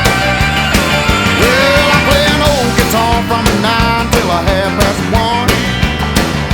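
Background music: an instrumental passage of an upbeat country song, with sliding, bending guitar lines over a steady drum beat.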